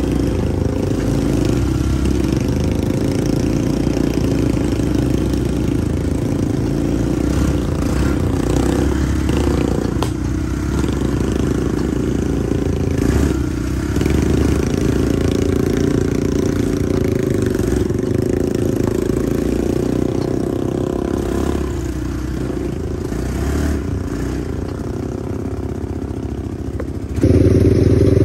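ATV engine running steadily while riding over a rough gravel trail, with rattle from the ride. The sound jumps abruptly louder near the end.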